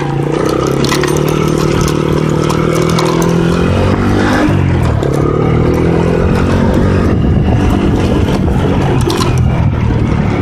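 Four-wheeler (ATV) engine running while it is ridden, its revs dipping about four seconds in and climbing again.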